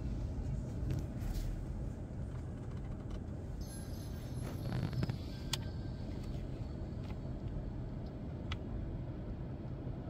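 Steady low rumble inside a parked car's cabin, with a few light clicks about five and a half and eight and a half seconds in.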